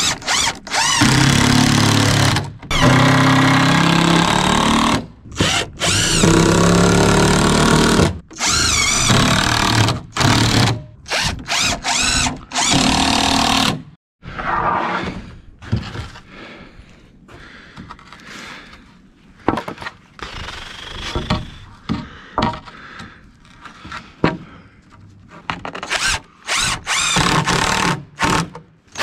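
Cordless impact driver driving long screws into 2x4 lumber in runs of a few seconds each, stopping and starting again. Quieter knocks of boards being handled take over about halfway, and short runs of the driver come back near the end.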